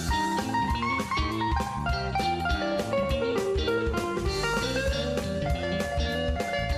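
Background music: bluesy guitar with a steady beat.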